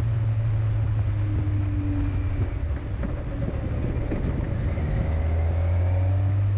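Kawasaki Versys 1000 motorcycle's engine and road noise heard through a helmet intercom's boom mic over a phone line: a steady low hum that shifts down slightly in pitch about halfway through.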